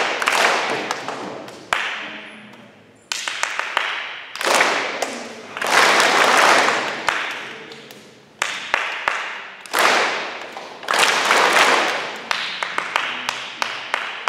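A group of people clapping hands in a gym: runs of single sharp claps alternate with several bursts of dense clapping that start suddenly and die away over a second or two.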